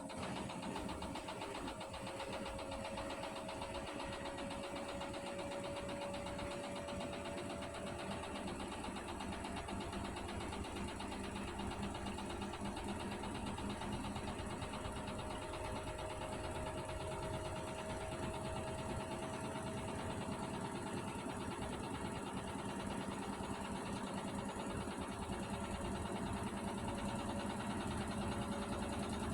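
Hotpoint Aquarius washing machine running, a steady mechanical drone with a low hum and rattle. A thin motor whine slowly rises in pitch twice, over the first few seconds and again past the middle.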